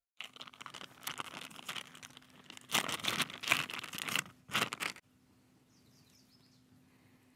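Plastic bag of soft-plastic stickbaits crinkling as hands open it and pull a bait out, loudest in a couple of rough rustles near the middle, stopping about five seconds in. Faint bird chirps follow.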